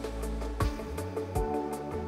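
Background music with a steady, slow beat of deep drum hits under held tones.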